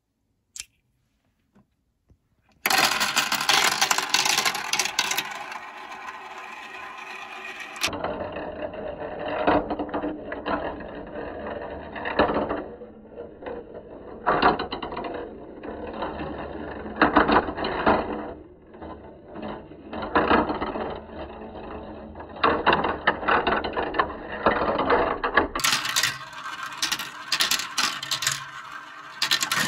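Plastic balls rolling and clattering down a Kumikumi Slope plastic marble run, starting about two and a half seconds in. A continuous rolling rattle is broken by frequent sharp clacks as the balls drop through tubes and hit tracks and trays.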